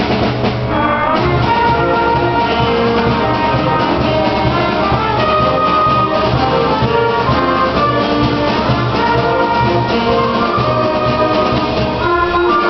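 Middle school concert band playing a piece live, brass and woodwinds sounding together with many held notes that keep changing.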